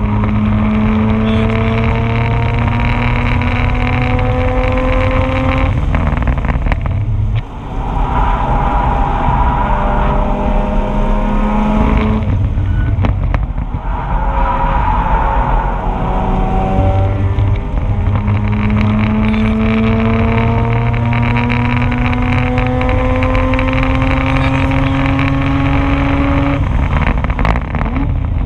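Mazda RX-8's twin-rotor Renesis rotary engine pulling hard at speed, its pitch rising steadily in several long climbs broken by brief drops for shifts or lifts, over a heavy low road rumble.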